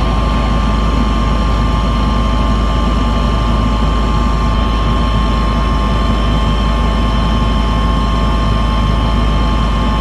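Steady engine and airflow drone of an aircraft in flight, heard from inside the cabin: a deep rumble with a thin, constant high whine over it.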